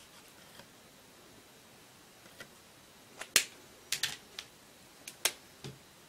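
Faint scratching of a marker tip on paper, then from about three seconds in a run of sharp plastic clicks as marker pens are swapped, caps pulled off and snapped back on; the loudest click comes first.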